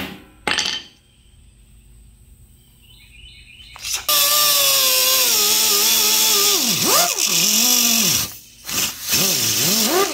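Two sharp knocks of a ball-peen hammer straightening a small flat steel patch piece, then a handheld grinder runs on the piece with a loud whine that sags and swoops in pitch as it bears on the metal, stops, and runs again in short bursts near the end.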